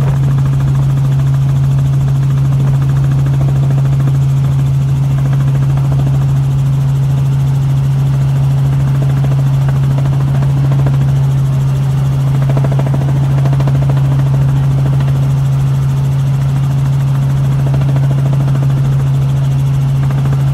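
Steady low hum of an aircraft in flight, holding one constant pitch throughout.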